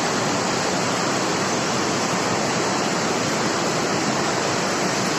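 River in flash flood, its swollen floodwater rushing past steadily without a break.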